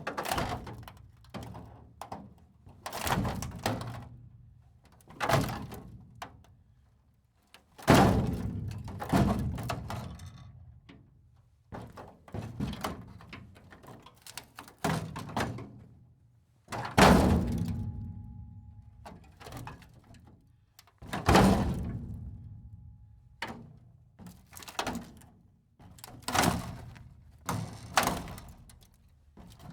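Metal breaking apart: a long series of heavy metallic impacts and crashes at irregular intervals, each trailing off quickly, the two loudest about eight seconds in and near the middle. A thin ringing tone hangs on for a few seconds after the middle crash.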